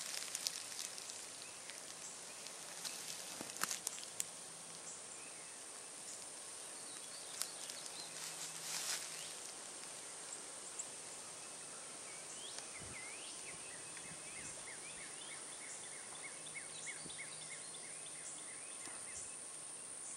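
Rural outdoor ambience: insects keep up a steady high-pitched drone, with some rustling and clicks in the first few seconds. In the second half a bird calls, ending in a quick series of repeated chirps.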